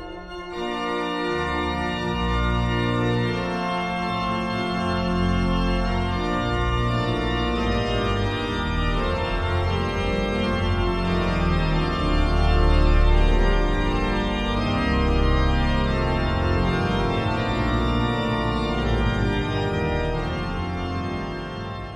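Organ music in slow, sustained chords over deep bass notes that change every few seconds, beginning to fade near the end.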